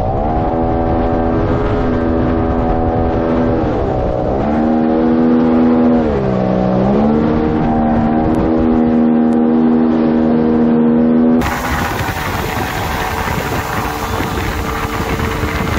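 Mercury 50 outboard with a water-jet nozzle driving a RIB at speed. Its pitch dips and comes back up a few times as the throttle is eased and reopened, then holds steady. About eleven seconds in, this gives way to a loud rushing of wind and water, with the motor faint beneath it.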